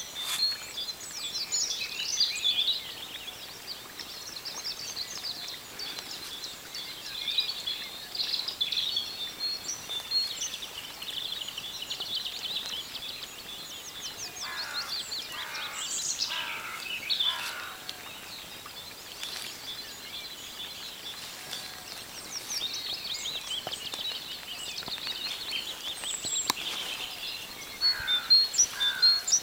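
Several wild songbirds singing and chirping together, a busy mix of high trills and twitters. About halfway through, and again at the very end, another bird gives a run of four or five harsher, lower calls.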